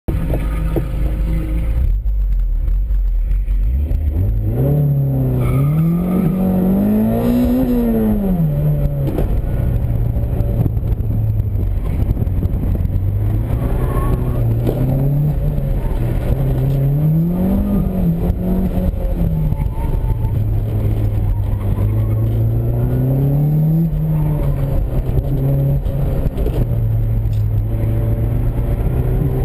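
1991 Toyota MR2 Turbo's turbocharged 2.0-litre four-cylinder engine, heard from inside the cabin. It runs low and steady for the first few seconds, revs up hard about four seconds in, then rises and falls again and again as the car is driven hard between cones.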